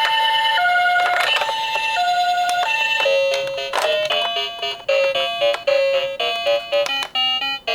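Two-tone ambulance siren alternating between a high note and a lower note, about once a second, in the Japanese "pee-po" style. About three seconds in it gives way to music with quick, bright stepping notes.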